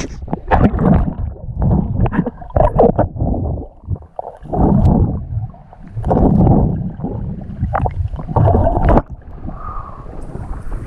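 Lake water splashing and sloshing over a GoPro as the swimmer's camera dips in and out of the surface, turning muffled and gurgling while it is under. It comes in irregular surges and is quieter near the end.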